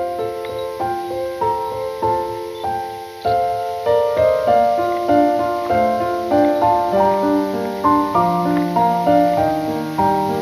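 Background piano music, a slow melody of sustained notes over chords with a gentle regular pulse.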